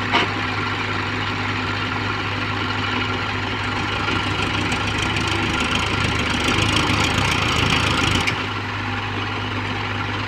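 Heavy diesel engine idling steadily, with a sharp click at the very start. From about four seconds in, a louder rushing noise builds over the engine and then cuts off suddenly about eight seconds in.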